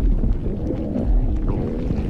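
Stomach gurgling and rumbling: a continuous low rumble with gurgles that glide up and down in pitch.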